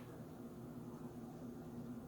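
Faint room tone with a steady low hum.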